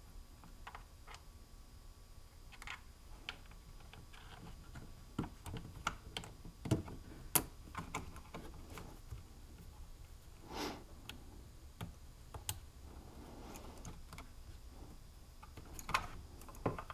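Faint, scattered clicks and taps of hands unplugging wire leads and handling the plastic parts around a chainsaw carburetor, with a sharper click about seven seconds in.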